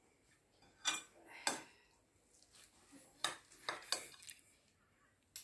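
Metal serving spatula and table knife clinking and scraping against a ceramic plate as a slice of baked egg-and-cheese tajine is set down and cut in two: about five short, sharp clinks.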